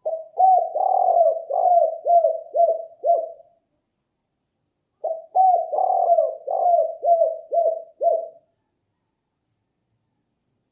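Spotted dove cooing: two phrases of about seven short, low coos each, the second phrase starting about five seconds in.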